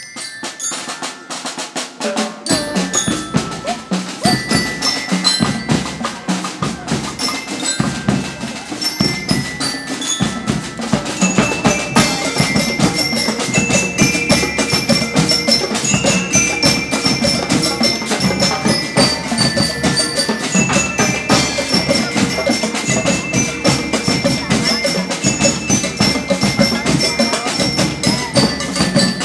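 School marching band playing: bass drum and snare drums beat a steady rhythm while bell lyres ring out the tune. The drums come in fully about two seconds in.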